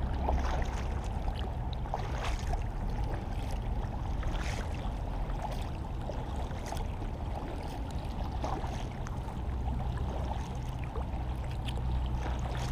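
Kayak paddle strokes: the blades dip and splash in the water about every two seconds, alternating sides, over a steady low rumble.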